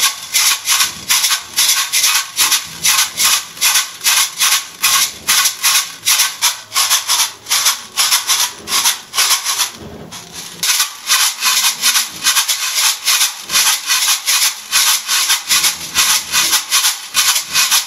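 Tube shakers (chacha, the seed-filled shaker of chouval bwa) shaken back and forth in a steady rhythm of about three to four strokes a second, with a short break about ten seconds in.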